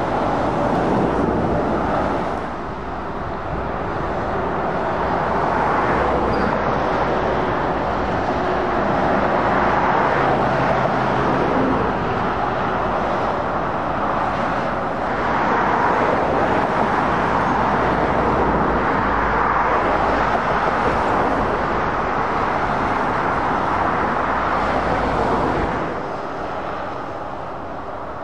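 Dual-carriageway traffic passing at speed: heavy lorries and cars going by one after another, their tyre and engine noise swelling and fading as each passes, with a brief lull about two seconds in and a quieter stretch near the end.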